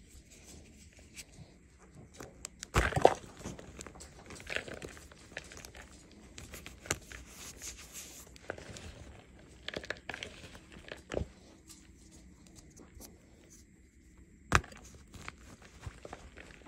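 A chunk of gym chalk caked with cornstarch paste being squeezed and crumbled by hand, giving irregular crunches and crackles as crumbs and powder fall into a plastic bowl. The loudest crunch comes about three seconds in, and a sharp crunch comes near the end.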